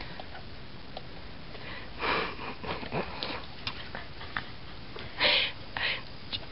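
A person making breathy sounds right at the microphone: a few short hushed bursts of air, one about two seconds in and the loudest ones a little past five seconds.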